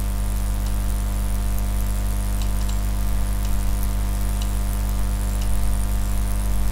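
Steady low electrical hum at the mains frequency and its overtones, over a light hiss, with a few faint clicks spread through it.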